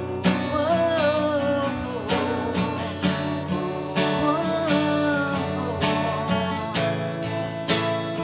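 Acoustic guitar strummed in a steady rhythm, with a voice singing two phrases over it in the first part, then guitar alone near the end.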